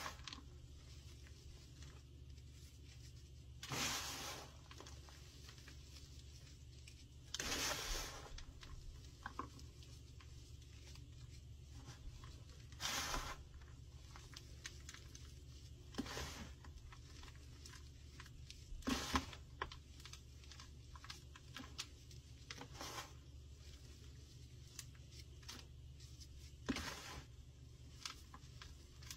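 Dried baking soda and gym chalk cake, coated in cornstarch, crunching and crumbling as it is squeezed and broken apart by hand: about seven short crunches a few seconds apart, over a faint low hum.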